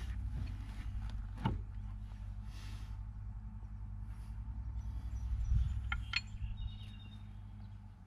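A steady low engine hum that swells about five seconds in and fades away near the end, with a couple of sharp metal clinks from the tractor wheel and its fittings being handled.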